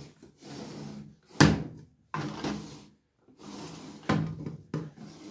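A cardboard advent-calendar drawer and its clear plastic insert being slid and handled in short scraping strokes, with two sharp knocks, the louder one about a second and a half in.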